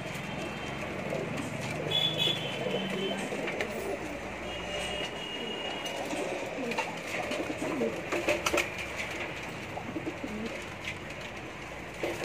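A flock of domestic high flyer pigeons cooing in their loft: many overlapping low coos, with a few short sharp taps about two-thirds of the way through.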